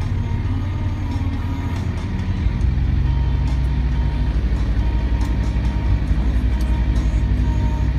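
Isuzu Panther 2.3 driving slowly, heard from inside the cabin: a steady low engine and road rumble that grows louder about two and a half seconds in.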